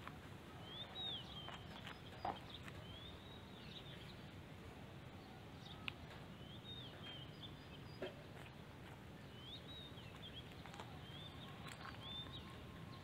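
Faint, short, high chirps of a small bird, repeated every second or so, over a low steady background, with a few sharp clicks, the loudest about two and six seconds in.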